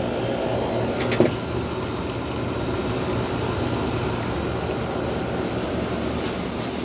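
Gibson 5000 BTU window air conditioner running with its compressor and fan on high: a steady hum and rush of air, with one short knock about a second in. The owner judges the unit somewhat low on refrigerant charge.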